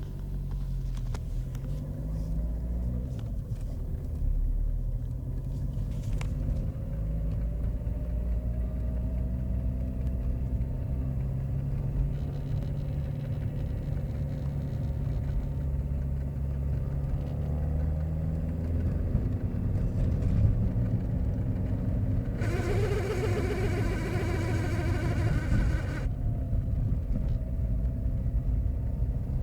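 Renault Clio running, its engine pitch rising and falling. About three-quarters of the way through, a harsh buzzing noise with many overtones comes in for about three and a half seconds and cuts off suddenly.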